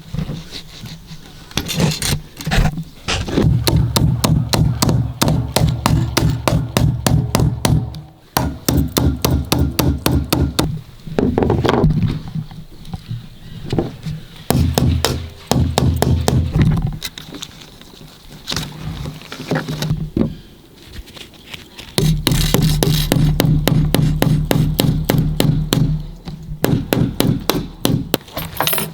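Background music with a fast, even percussive beat over a steady low bass line, dropping out briefly a few times.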